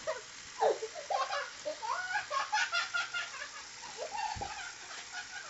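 A cartoon bird character giggling and laughing in a high voice, in a string of short bursts that are busiest in the middle.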